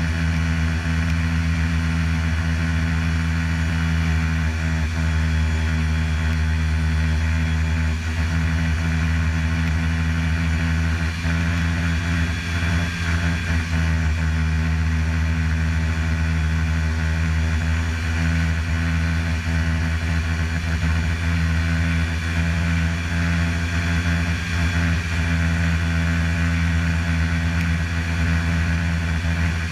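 Snowmobile engine running at a steady cruising speed, a constant drone that barely changes in pitch or loudness, heard from the rider's helmet.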